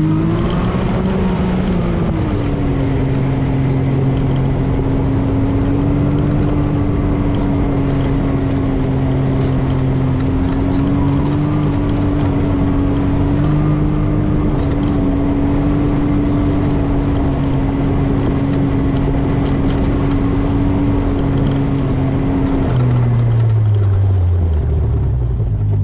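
Can-Am Maverick X3 side-by-side's three-cylinder engine running at a steady drone while cruising. The pitch rises briefly about a second in, and about three seconds before the end it drops steadily as the machine slows down.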